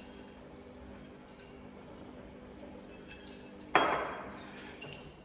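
A faint steady hum, then about three and a half seconds in a sharp clink of kitchenware that rings briefly and fades, followed by a few light clicks.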